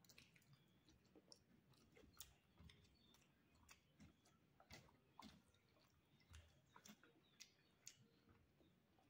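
Faint close-up chewing of a mouthful of rice eaten by hand, with soft wet mouth clicks at irregular intervals.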